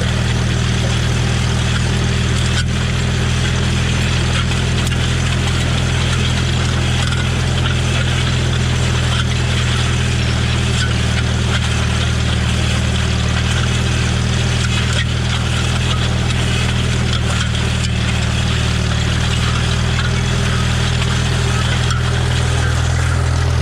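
Farmall M tractor's four-cylinder engine running at a steady speed, with no change in pitch or level.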